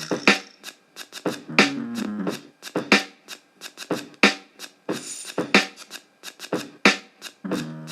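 Background music with a busy, crisp percussive beat and short runs of low pitched notes.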